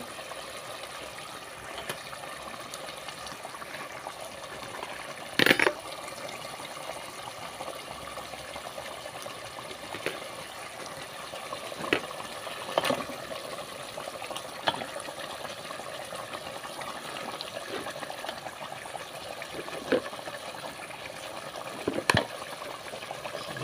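Thick curry sauce bubbling and sizzling steadily in an aluminium pot. A few sharp knocks and clatters come at intervals, the loudest about five seconds in, as pieces of raw chicken are put into the pot.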